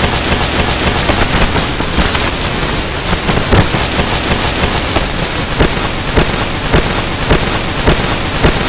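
Harsh noise music from a cassette tape: a dense, loud wall of hissing static with irregular crackles. From about three and a half seconds in, sharper pops recur roughly twice a second.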